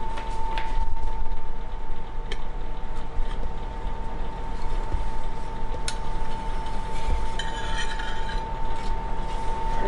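Plates and utensils clinking and knocking a few times over a steady hum, with a short rattle near the end, as cooked fish is handled onto a plate.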